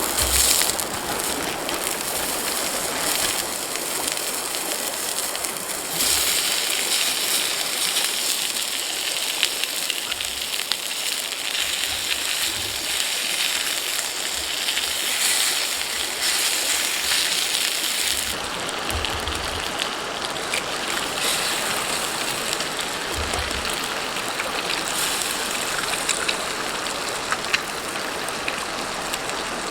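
Steady water noise from a summer river, with a thin steady high-pitched tone running through it, typical of insects.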